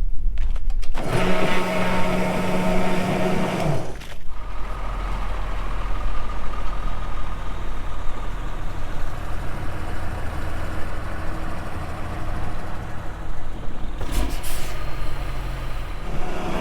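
Heavy vehicle engines running steadily, the sound changing abruptly about a second in, about four seconds in, and again near fourteen seconds.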